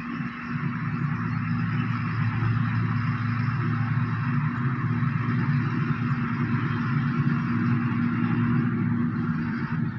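Claas self-propelled forage harvester and Fendt tractor running together while chopping grass for silage: a steady, loud engine drone with a constant hum over it.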